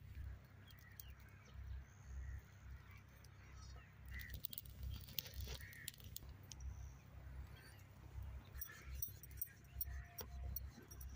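Faint outdoor ambience: a low, gusty rumble with scattered light clicks and ticks, in two clusters, around the middle and near the end.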